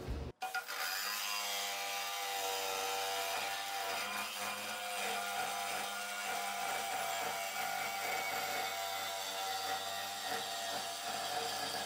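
Makita jigsaw blade cutting through a metal angle clamped in a vise. It starts about half a second in, then runs steadily at an even pitch.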